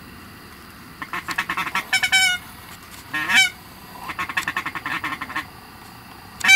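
Goose honking: two fast runs of short clucking honks, each lasting about a second and a half, with a single louder honk between them and another at the end.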